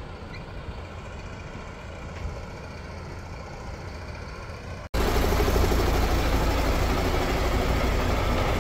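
Heavy vehicle engines idling steadily, heard at some distance at first. After a cut about five seconds in, one idles close by and much louder.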